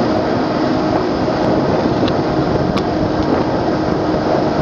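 Boat engine running steadily, heard from on board as a constant hum over the rushing noise of the water.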